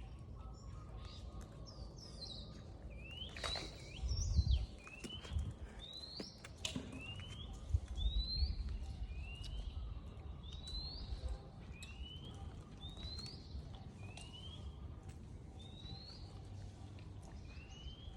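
A series of short rising chirps, about one a second, alternating between a slightly lower and a slightly higher call, from a small animal or bird. Low rumbling thumps come through a few seconds in.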